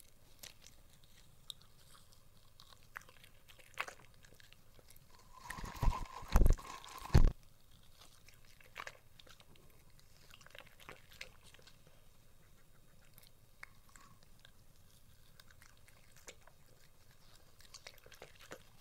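A West Highland white terrier biting and chewing pieces of fillet steak: scattered short chewing clicks and crunches, with a cluster of three much louder thumps about six to seven seconds in.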